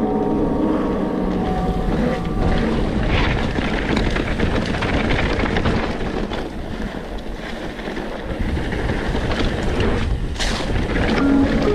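Wind buffeting the camera microphone over the continuous rumble and rattle of a Trek Fuel EX 7 mountain bike rolling along a dirt trail, with many small knocks from the tyres and frame over bumps.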